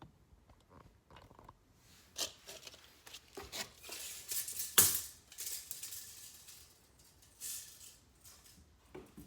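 Scattered clicks, rattles and light scraping of objects being handled, with one sharp click about five seconds in.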